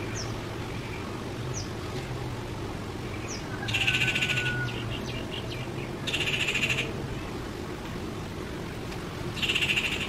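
Rufous treepie giving three harsh, rasping calls, each under a second long: about four seconds in, about six seconds in, and near the end.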